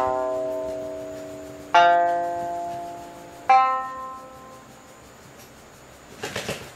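Open strings of a yushigi-wood sanshin plucked one at a time: a note ringing on from just before, then two more notes about a second and three-quarters apart, each ringing out and slowly fading. A few quick clicks come near the end.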